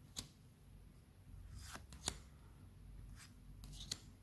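Pokémon trading cards being slid one at a time through a hand-held stack, faint, with a few short sharp snaps as cards come free.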